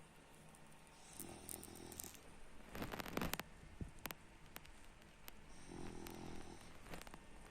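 Sleeping six-month-old French bulldog puppy snoring: two buzzy snores about four seconds apart. Between them comes a short, louder sharp noise and a few faint clicks.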